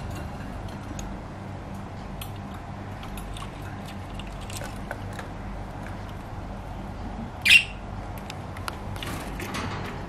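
Budgerigars making short soft chirps and clicks, with one loud, sharp squawk about seven and a half seconds in, over a steady low hum.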